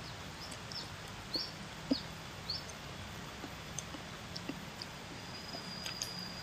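A small bird chirping a short high note about six times in quick succession over the first few seconds, with soft clicks of eating by hand. A thin, steady, high insect whine starts near the end.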